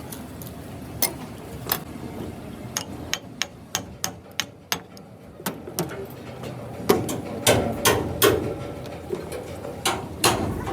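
Hammer striking steel in irregular blows, about one to two a second, while a bent hydraulic jack is being straightened. The blows from about seven seconds in are heavier and leave a short metallic ring.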